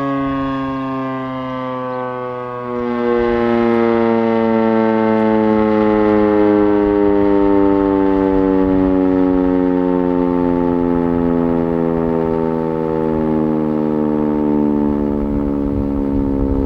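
Sentry 14V-B electromechanical outdoor warning siren sounding its full-alert tone, loud and rich in overtones. Its pitch slides slowly downward as the siren winds down at the end of the cycle. It swells louder about three seconds in.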